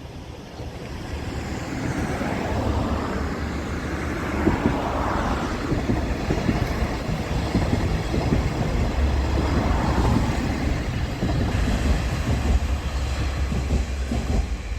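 KiHa 47 diesel railcar passing on the rail line, its engine drone and wheel noise building up about a second in and then holding steady with a low hum.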